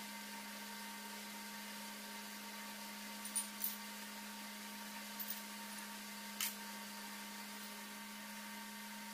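Horizontal milling machine running with a steady hum, joined a few times by short, sharp metallic clicks as the table levers and handles are worked.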